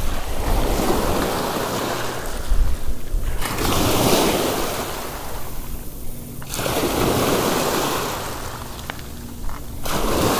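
Small waves breaking and washing up over a pebble beach, swelling and ebbing in several surges every few seconds.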